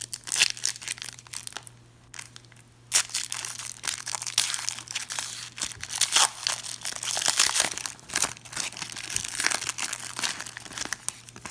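Crinkling and rustling of a trading-card pack wrapper and basketball cards being handled and flipped through, with a lull about two seconds in. A faint steady low hum runs underneath.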